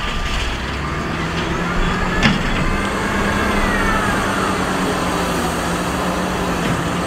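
Wheel loader's diesel engine running under load as it pushes sand with its bucket: a steady drone with a faint whine that rises and falls in the middle, and one sharp click a little over two seconds in.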